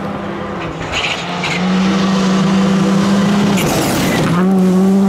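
Škoda Fabia Rally2 rally car's turbocharged four-cylinder engine at high revs, approaching and passing flat out on a gravel stage, with gravel and tyre noise. The engine note holds steady, dips briefly about four seconds in, then picks straight back up.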